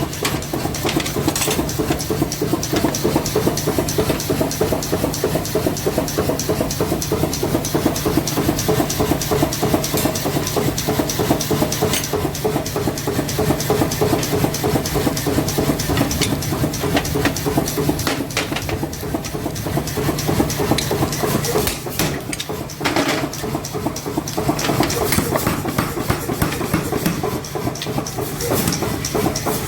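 Mechanical forging hammer pounding steel in a rapid, even rhythm of blows over a steady machine hum, with brief breaks in the pounding about two-thirds of the way through and again near the end.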